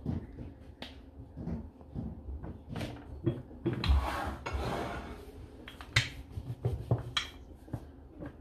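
Kitchen handling sounds as buttered dough is worked into a ball by hand: scattered sharp clicks and knocks, with a rubbing, rustling sound about four seconds in.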